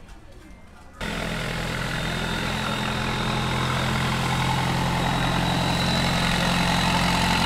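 An engine running steadily, a low hum with a loud hiss over it, starting suddenly about a second in and slowly growing a little louder.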